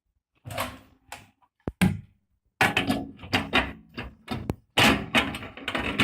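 Hard objects being handled: an irregular run of knocks, clunks and rattles, with a couple of sharp clicks, busier in the second half.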